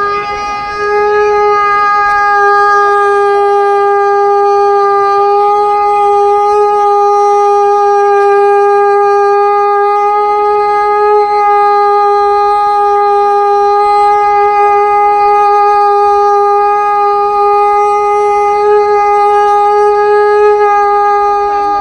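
Sankh (conch shell trumpet) blown in one long, steady note, dipping briefly about half a second in and then held unbroken.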